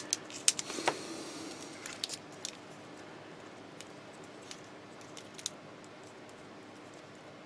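Small sharp clicks and rattles of test-lead clips being handled and hooked onto the leads of a tubular electrolytic capacitor. They are thickest in the first couple of seconds, then come singly, over faint steady room hum.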